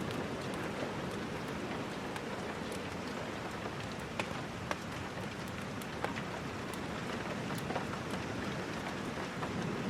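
Steady rain falling, an even hiss with a few scattered sharp ticks.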